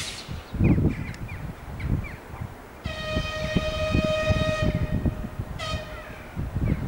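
Horn of a TEP70 diesel passenger locomotive: one long steady blast of under two seconds on a single note, then a short second blast about a second later. A low irregular rumble runs underneath.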